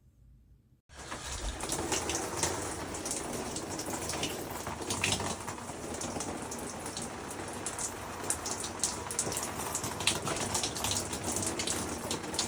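Water running or spraying in a steady rush, starting abruptly about a second in, with scattered small splashes.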